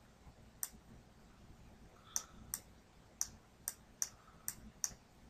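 Stylus tip clicking against a writing tablet while an equation is handwritten: a series of faint, sharp clicks, roughly two a second.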